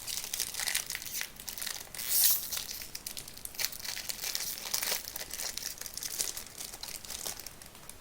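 Foil wrapper of a Topps Chrome baseball card pack crinkling as it is torn open and pulled off the cards, in an irregular crackle that is loudest about two seconds in.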